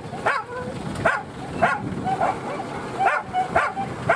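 Several boar-hunting dogs yelping and whining, with sharp yelps coming about every half second over shorter whines.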